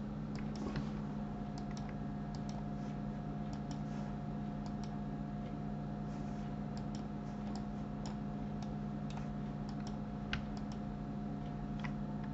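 Irregular clicks and key presses of a computer keyboard and mouse, some spaced out, some in quick pairs, over a steady low electrical hum.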